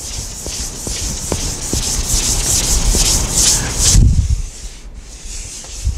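A board eraser scrubbed back and forth across a classroom board: a scratchy, pulsing hiss for about four seconds, ending with a low bump.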